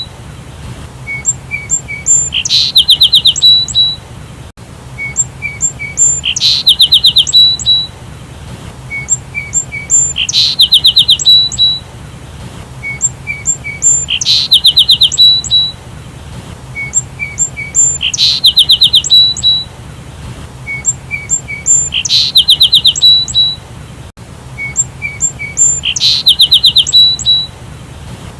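Sparrow chirping: a fast, loud run of high chirps followed by a few short notes, the same phrase repeating about every four seconds, seven or eight times in all.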